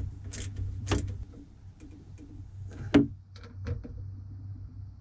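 Small clicks and taps of bolts and a driver being worked into a boat fuel sender's mounting flange, with one sharper knock about three seconds in, over a low steady hum.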